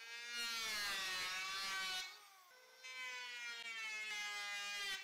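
Electric hand planer running along a cedrorana board, its motor whining with a rising pitch as it spins up. The whine dips about two seconds in and comes back steady about a second later as the pass goes on, flattening the warped board.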